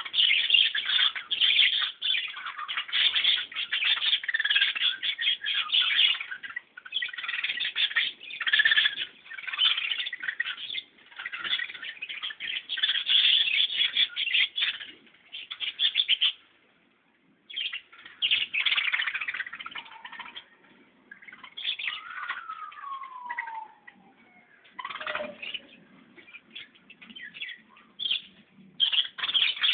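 A flock of birds chirping and chattering in dense bursts with short pauses, and one clear call that glides down in pitch about two-thirds of the way through.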